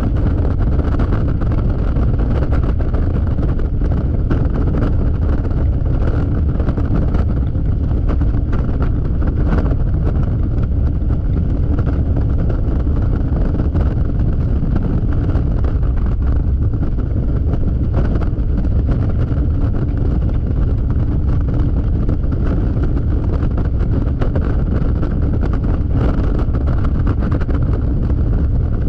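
Yamaha XMAX scooter at freeway speed: heavy wind buffeting on the microphone over the steady drone of its single-cylinder engine and road noise.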